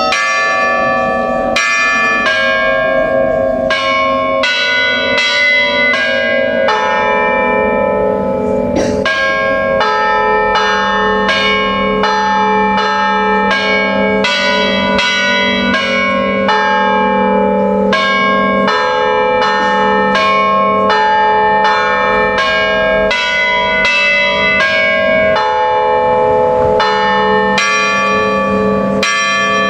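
Church bells hanging still and struck in turn by electric hammers, playing a melody. The strikes come quickly, about two a second, on several different pitches, and each rings on into the next.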